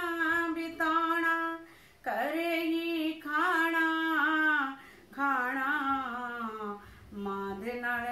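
A woman singing Punjabi verses solo with no instruments. Her long held notes come in phrases of about two seconds, with short breaths between them.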